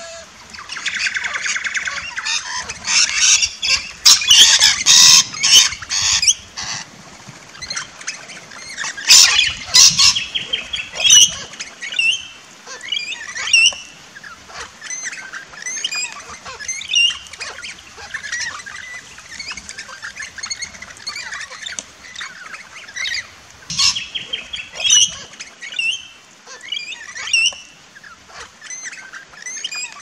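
A flock of parrots, rainbow lorikeets and crimson rosellas, screeching and chattering over one another, with many short rising and falling calls. The loudest, harshest screeching comes in stretches near the start, around ten seconds in and again around twenty-four seconds in.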